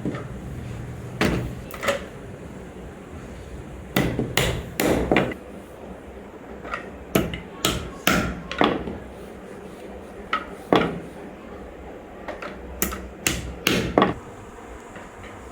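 A series of sharp knocks, about eighteen in irregular clusters of two to four, over a steady low hum.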